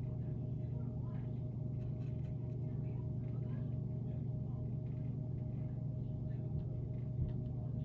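Baby chicks peeping faintly in short scattered chirps over a loud, steady low hum.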